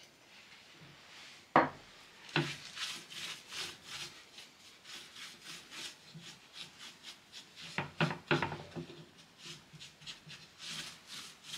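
Aged glaze being brushed on and rubbed into a wooden board with a brush and a cloth rag, in quick repeated scrubbing strokes, two or three a second. A few sharp wooden knocks come through, the loudest about one and a half seconds in and two more around eight seconds.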